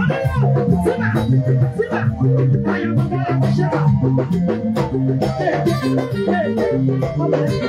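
Live band music with a stepping bass guitar line, a shaker and drums keeping a steady beat.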